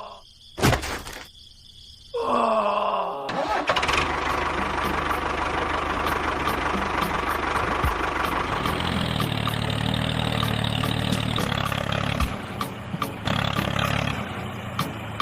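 A click and a short falling sound effect in the first seconds, then an engine starts and runs steadily with a noisy rumble and a low hum.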